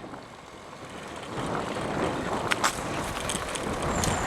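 Bicycle rolling over cobblestones, a rough rattling noise with wind on the microphone, growing louder about a second and a half in, with a couple of sharp knocks near the middle.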